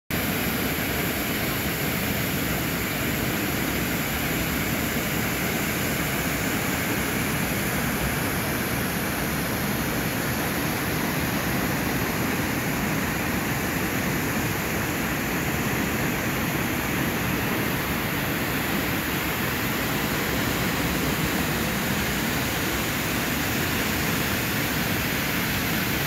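Partly ice-covered waterfall rushing steadily into its plunge pool, an even, unbroken noise of falling water.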